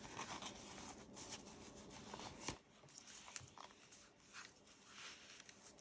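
Faint rustling of paper pages being handled, with a few soft ticks, the sharpest about two and a half seconds in.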